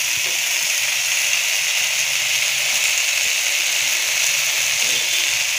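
Potatoes, mushrooms, tomato and onion sizzling in hot oil in a metal pot, a steady hiss, with ground spices just stirred in.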